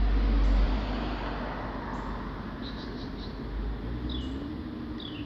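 Outdoor ambience: a loud, low rumbling noise that eases off about a second in, leaving a quieter background of distant traffic. A steady low hum comes in near the end, with a few short bird chirps that fall in pitch.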